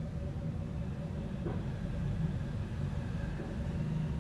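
Steady low background rumble, with no clear events in it.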